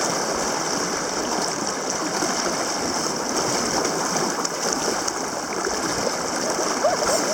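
Steady rushing of a shallow river flowing.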